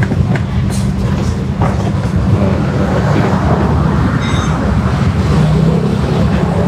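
Steady low mechanical rumble, like an engine running, with a few light knocks in the first two seconds as a carbon-kevlar air scoop panel is handled. A brief high squeak comes about four seconds in.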